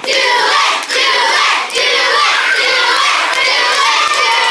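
A roomful of children shouting together, loud and continuous, with brief dips about a second and just under two seconds in.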